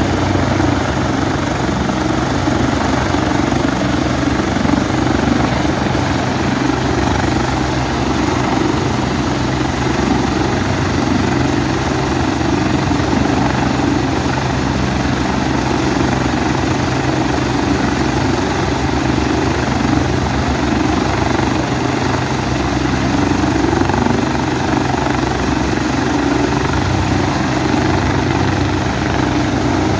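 Helicopter running on the ground with its rotors turning, a steady engine and rotor drone that does not rise or fall.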